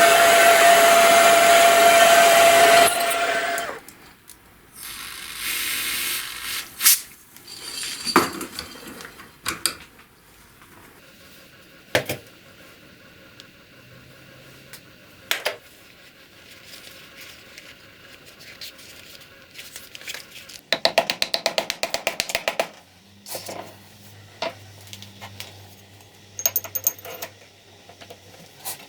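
A power tool runs loudly with a steady whine for about three seconds, then stops. Scattered sharp clicks and knocks of metal parts being handled follow, and about twenty seconds in comes a burst of rapid, even clicking.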